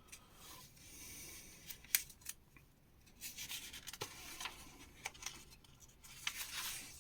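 Quiet paper rustling as magazine pages are handled and turned, in several soft swishes with a few small clicks.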